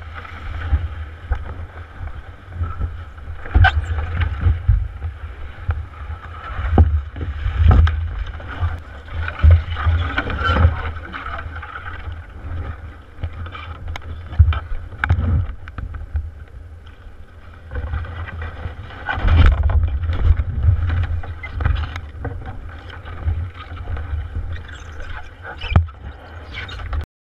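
A canoe carried overturned on the shoulders, heard from inside the hull: an uneven low rumble with frequent irregular knocks and thumps as the hull and yoke shift with each stride. The sound cuts off suddenly at the very end.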